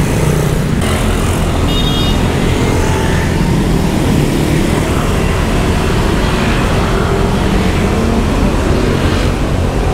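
Steady, loud road traffic on a busy street, vehicles running past, with a short high-pitched beep about two seconds in.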